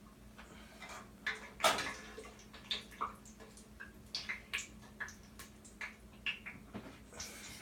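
Irregular clinks, taps and knocks of kitchen utensils and dishes being handled, with a louder clatter just under two seconds in, over a faint steady hum.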